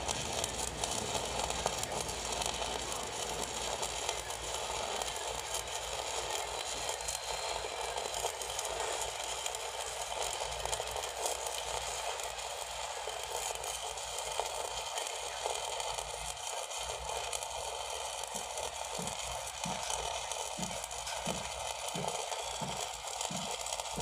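Stick (arc) welding on steel: the electrode arc giving a steady crackling sizzle.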